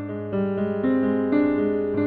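Background piano music: a steady run of notes, a new one struck every third to half second.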